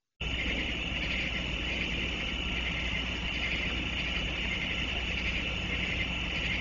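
Steady background hum and hiss picked up by a security camera's microphone at night, starting abruptly a moment in, with no distinct events over it.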